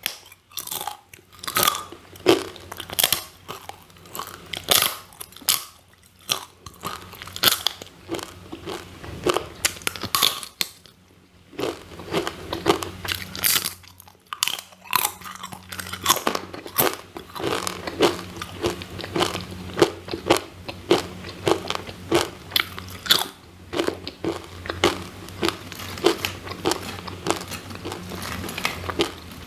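Crunching and chewing of crispy sweet potato chips: a fast run of sharp crunches, two or three a second, broken by a couple of short pauses around the middle.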